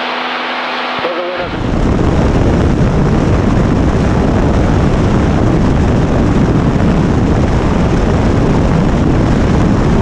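Light aircraft in flight, heard from a camera mounted on the outside of the plane: loud, steady wind rush over the microphone mixed with engine and propeller noise, cutting in suddenly about a second and a half in. Before that, a quieter steady engine drone as heard through the cabin headset audio.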